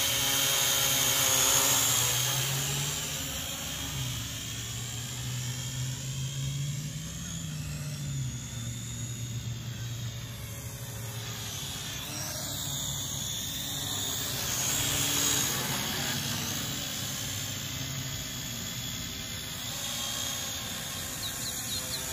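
Syma X8 Pro GPS quadcopter drone flying, its propellers buzzing steadily. The hum drifts up and down in pitch and loudness as the drone moves nearer and farther, loudest near the start and fading around the middle.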